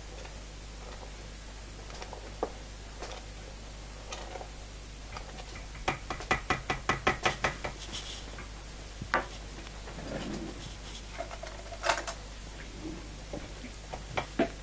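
Kitchen utensils knocking and clinking on cookware over a steady low hum, with a rapid run of about a dozen taps about six seconds in: stirring cream into the pea soup.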